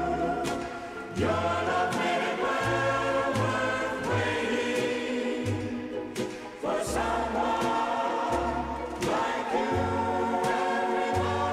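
Choral music: voices singing sustained chords over an instrumental accompaniment with a walking bass line, played from an old 45 rpm record dubbed to reel-to-reel tape.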